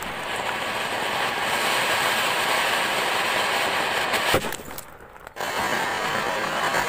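Anar (flower-pot) firework fountains hissing steadily as they spray sparks out of watermelons. The hiss briefly drops away for about a second, four and a half seconds in, then returns.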